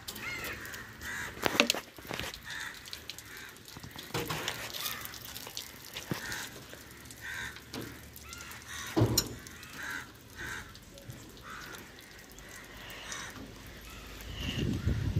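Crows cawing repeatedly, with two louder splashes of water thrown against a truck's cab, about one and a half seconds in and about nine seconds in.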